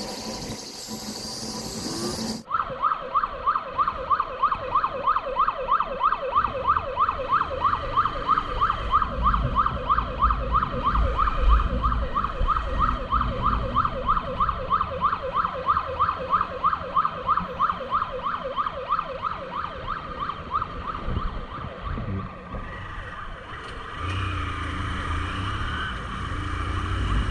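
Emergency-vehicle siren in rapid yelp mode: quick rising sweeps, about four a second, over a low rumble of traffic. It starts abruptly a couple of seconds in and stops about three-quarters of the way through.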